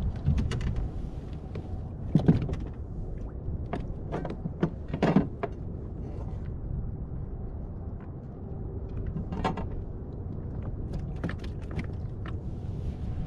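Wind rumbling on the microphone, with a dozen or so irregular knocks and clicks from fishing gear being handled on a kayak while a fish is landed.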